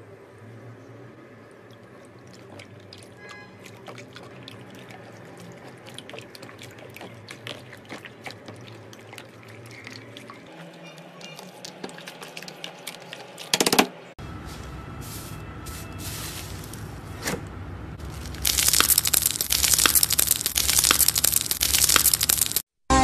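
Slime being worked by hand: a run of soft sticky crackles and squelches, with a louder pop about two-thirds of the way in. The crackling turns much louder and denser over the last few seconds.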